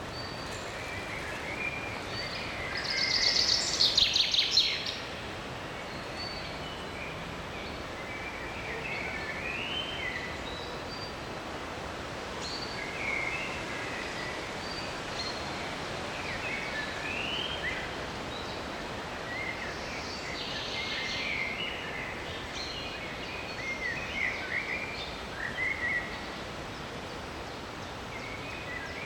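Forest birds calling: short high chirps and phrases scattered over a steady background hiss. The loudest is a rapid, high burst of notes about three to five seconds in, with another busy cluster of calls near the end.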